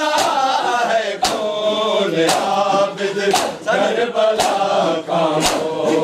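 Male voices chanting a noha refrain together, with the mourners' matam, hands slapping bare chests in unison, striking sharply about once a second.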